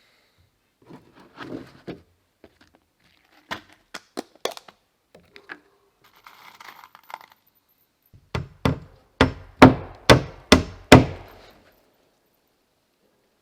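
A hammer driving a nail into wooden roofing: a few scattered light knocks and some rustling, then a run of about eight hard blows in quick succession after about eight seconds.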